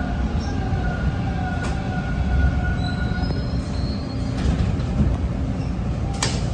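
Toronto subway T-1 train slowing into a station: a steady low rumble of wheels and running gear, with the faint whine of its GTO-VVVF AC traction motors falling in pitch as it brakes. A sharp clunk comes near the end.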